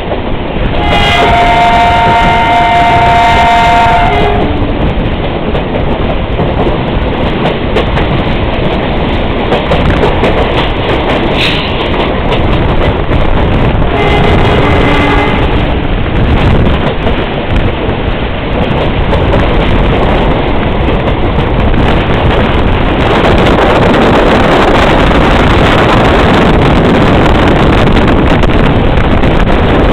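Passenger train's locomotive horn giving a long blast of about three seconds, then a shorter blast about fourteen seconds in, over the steady running noise of the moving train. The running noise grows louder about two-thirds of the way through.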